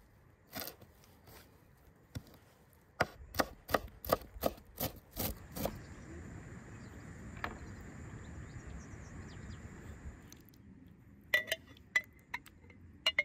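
Kitchen knife chopping fresh herbs on a wooden cutting board: a couple of single knocks, then a quick run of about eight chops in the first half. A few more sharp knocks come near the end.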